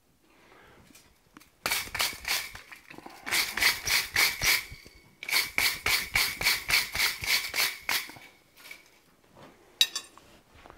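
Hammer striking a hot forged steel hook on an anvil in quick light blows, about four to five a second, in two runs, with the anvil ringing under each blow. A single sharp metallic clink comes near the end.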